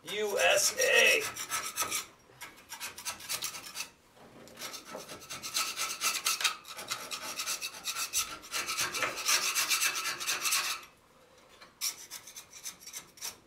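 Hand wire brush scraping rust and crust off a 1957 Chevy pickup's frame rails, in runs of fast back-and-forth strokes. There is a short break a few seconds in, and it mostly stops a couple of seconds before the end.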